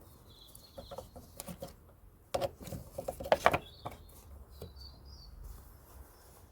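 A series of light clicks and knocks, loudest and most frequent between about two and a half and three and a half seconds in, with faint bird chirps in the background.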